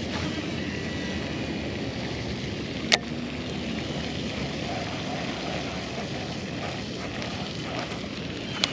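Steady rumble of wind buffeting the microphone, with two sharp clicks from a baitcasting reel, about three seconds in and again near the end.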